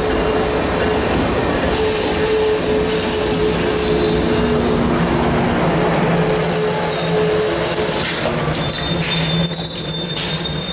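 Piedmont passenger coaches rolling slowly past along the platform, their wheels squealing on the rails in several steady tones. A higher squeal joins about nine seconds in.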